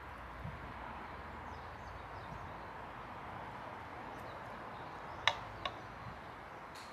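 Quiet outdoor garden background with faint, scattered bird chirps, and two sharp clicks a little after five seconds in.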